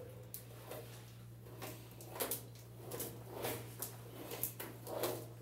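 Rustling and scuffing as a man pulls the laces out of his shoes: a string of short, irregular handling noises over a steady low electrical hum in the recording.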